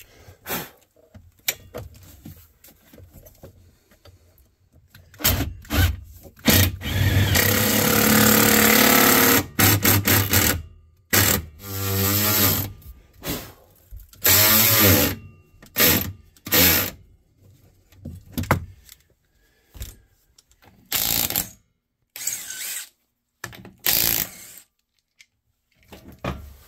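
Cordless power tools run in a series of short bursts, a cordless ratchet and a cordless drill driving fasteners, with one longer run about a third of the way through and some runs rising in pitch as the motor spins up.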